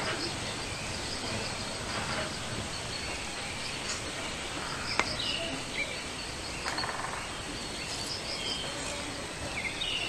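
Forest ambience with a steady hiss and a faint, high, pulsing buzz. Short bird chirps come in from about five seconds on, with a cluster near the end, and a single sharp click sounds about five seconds in.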